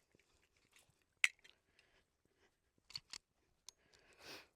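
A few sharp metallic clicks and small knocks from handling an unloaded Taurus 1911 pistol, the loudest about a second in.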